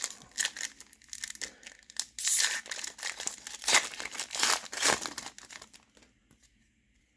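Trading card pack wrapper being torn open and crinkled by hand, in a run of irregular rips and rustles that stop about six seconds in.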